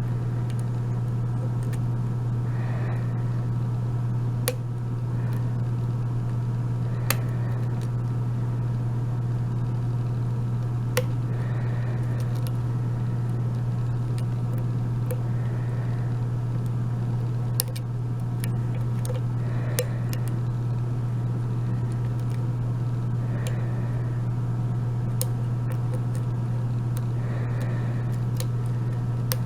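A steady low hum, with sharp metallic clicks every few seconds from a pick and tension wrench working the pin stack of an Abus 72/40 padlock during single-pin picking.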